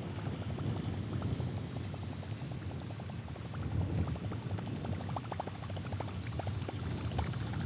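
Small wind-driven waves lapping against a plastic kayak hull, with a steady bubbling gurgle made of many small irregular plinks.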